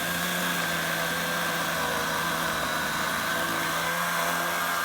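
Milwaukee M12 Fuel battery chainsaw with a 6-inch bar running steadily while cutting into a tree trunk, its motor and chain making a steady whine.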